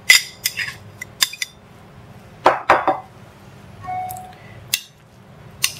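Metal spoon clinking and scraping against a glass bowl and a ceramic bowl as chopped jalapeno is spooned onto the potato filling: a string of sharp clinks, thickest about two and a half seconds in.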